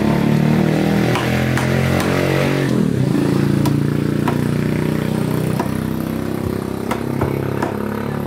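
A motorcycle engine running, its pitch shifting a little about three seconds in, with sharp knocks of a cleaver chopping trevally on a wooden block scattered through it.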